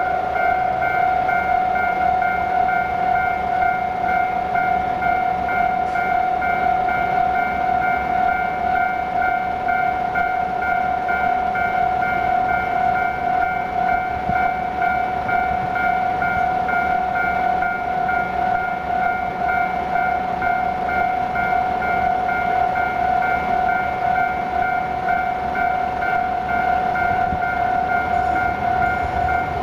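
Japanese railway level-crossing alarm ringing continuously: a rapidly repeated electronic bell on one pitch, with a subtly unusual tone.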